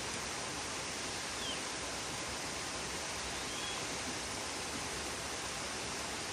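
Steady, even outdoor hiss with no footsteps standing out, and a few faint, short, high chirps about a second and a half and three and a half seconds in.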